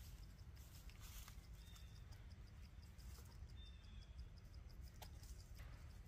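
Near silence: faint outdoor ambience with an insect ticking steadily, two brief faint bird calls and a single click about five seconds in.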